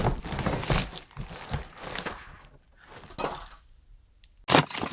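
A taped cardboard box being torn open, with packing tape ripping and cardboard and foam packing crackling and rustling. It goes quieter for a moment partway through, then a quick run of sharp crackles comes near the end.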